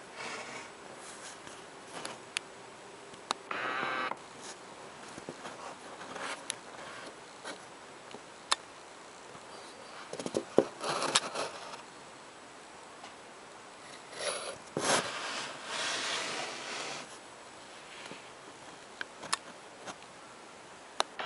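Handling noise from a handheld camera: scattered sharp clicks and a few short rustling, scraping bursts.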